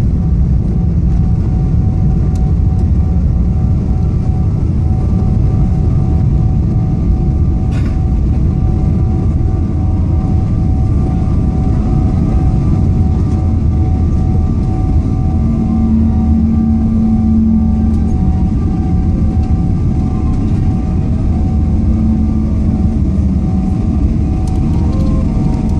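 Steady cabin noise inside a Boeing 777-300ER airliner: a loud, even rumble of engines and airflow with a few steady tones over it. A low hum comes in twice in the second half.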